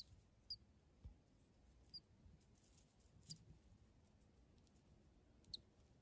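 Faint, high-pitched peeps from a newly hatched chick: about four short squeaks, irregularly spaced, over near silence.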